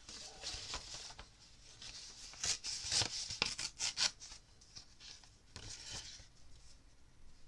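A sheet of collage paper being handled, bent and slid over a sketchbook page: paper rustling and crackling, with a cluster of sharper crackles about two and a half to four seconds in.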